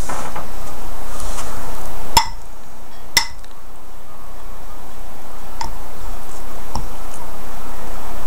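A metal fork clinking against the bowl of melted chocolate four times, each tap ringing briefly, while peanut butter balls are rolled in the chocolate and lifted out.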